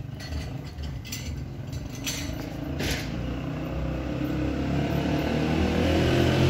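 A road vehicle approaching along the street, its rumble and hiss getting steadily louder, with a short click about three seconds in.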